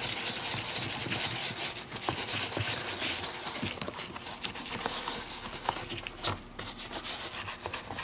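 Small stiff brush scrubbing dust out of the leather lining inside a baseball glove: quick scratchy back-and-forth strokes, with a short pause about six seconds in.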